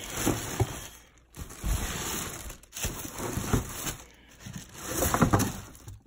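Plastic film crinkling and cardboard scraping as a plastic-wrapped unit is pulled out of its box, coming in several uneven bursts with short pauses between them.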